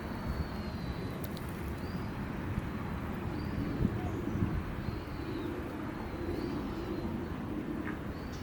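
Short high bird chirps repeating about once a second over a steady low rumble of outdoor background noise.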